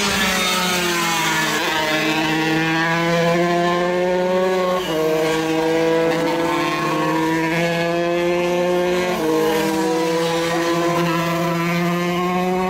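125cc racing motorcycle engine held at high revs, its pitch climbing slowly and dropping sharply with upshifts about five and nine seconds in.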